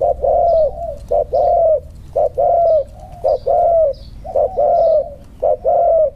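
Caged spotted dove cooing repeatedly. Each phrase is a short note followed by a longer coo that drops at the end, about one phrase a second.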